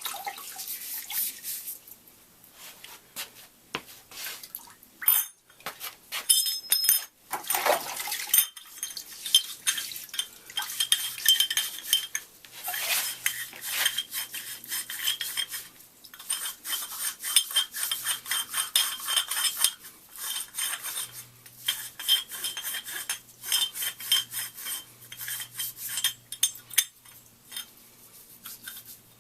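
Scotch-Brite abrasive pad scrubbing over welded stainless steel tube fittings in quick, uneven scratchy strokes, with a few sharp metallic knocks from the fittings being handled.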